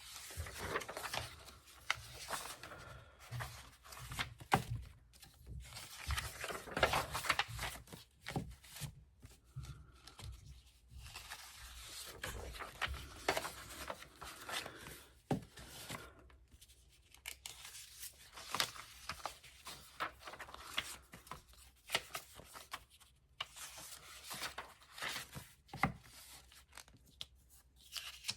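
Sheets of craft paper being handled and shuffled on a work surface, rustling and crinkling in irregular bursts, with a few sharp taps.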